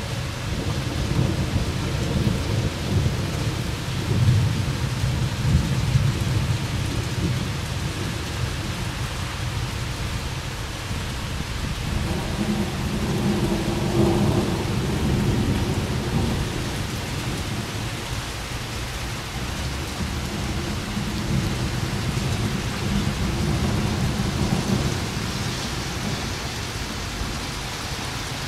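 Rolling thunder rumbling in long low waves over steady rain. The rumble swells for the first several seconds, again about halfway through, and once more near the end.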